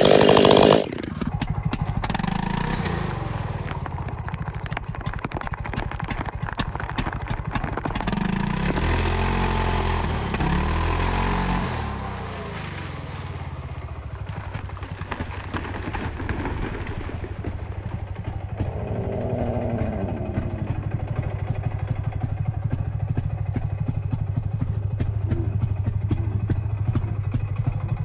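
Stihl two-stroke chainsaw at full throttle finishing a felling back cut, dropping to idle about a second in. It then idles steadily, revving up and down briefly around ten seconds in and again around twenty.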